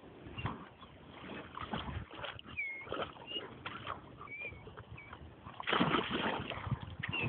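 A dog paddling and splashing in pond water, then scrambling out onto the bank, with louder splashing from about six seconds in.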